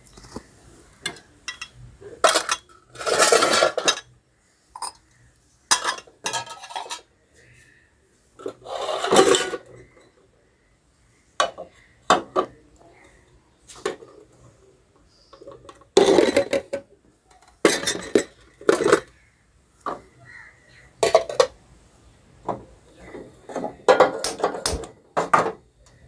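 A steel spoon scraping and clanking against a stainless steel bowl, stirring chopped herbs into a thick paste. The stirring comes in irregular strokes with short pauses between them.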